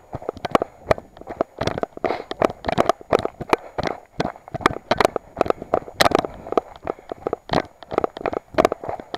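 Running footsteps crunching on a loose, stony dirt trail at running pace: a quick, regular series of short impacts.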